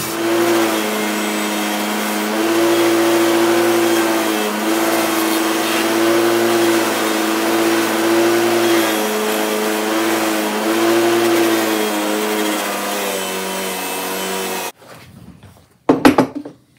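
Bench-mounted wire wheel running and scrubbing rust off a steel adjustable wrench: a steady motor hum under the hiss of the wire bristles. The pitch sags briefly several times as the work is pressed into the wheel. The sound stops suddenly near the end, and a single loud knock follows.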